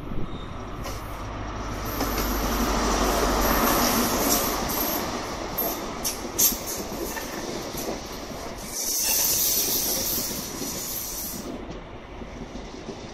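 An InterCity 125 High Speed Train (Class 43 diesel power car hauling Mark 3 coaches) running slowly past along the platform: a steady rumble of engine and wheels on the rails, with short clicks and a high-pitched hiss about nine seconds in that lasts a couple of seconds.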